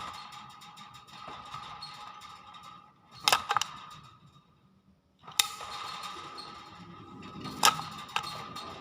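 Pet hill myna vocalising: two stretches of a steady, buzzy tone, each about three seconds long, broken by several loud, sharp bursts.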